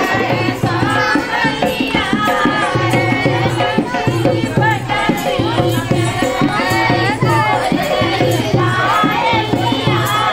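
A group of women singing a rural Hindi folk dance song together, over a driving dholak drum beat and hand clapping.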